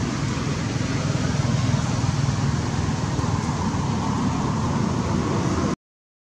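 Steady outdoor background rumble and hiss with no clear pitch, cutting off abruptly to silence near the end.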